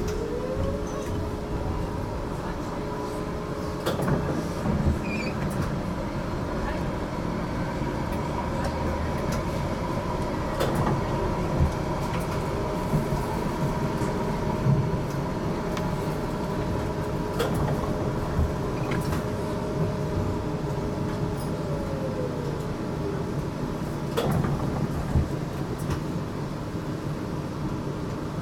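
GTL8 tram running along the rails, heard from inside the car: a steady rumble of wheels and motors with occasional short knocks and clicks. The motor whine rises in pitch just after the start as the tram picks up speed, and falls again near the end as it slows.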